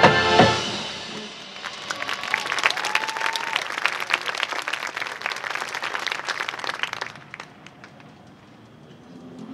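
A marching band's brass and percussion cut off on a loud final hit, then a stadium crowd applauds for about five seconds before the clapping dies away. Soft held notes of the band's next piece begin right at the end.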